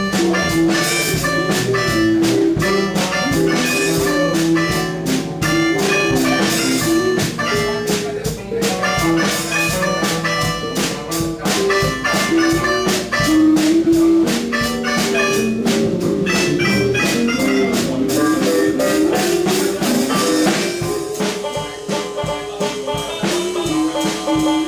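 Band playing an instrumental rock improvisation, with a drum kit keeping time under melodic instrument lines.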